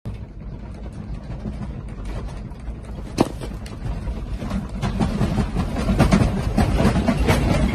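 A room shaking in a strong earthquake: a low rumble with furniture and shelf contents rattling and creaking, growing louder and busier over the last few seconds. A single sharp knock about three seconds in.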